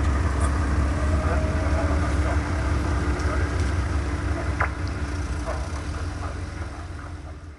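Fishing boat's engine running steadily with a deep rumble, fading out near the end.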